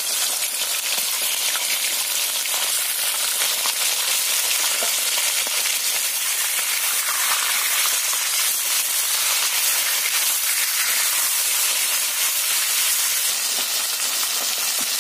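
Raw chicken pieces, washed and still wet, sizzling steadily in hot refined vegetable oil in an aluminium kadai, with a spatula stirring them.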